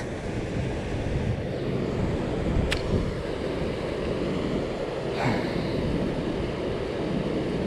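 Steady rush of flooded river water pouring through a spillway, with one sharp click a little over two and a half seconds in.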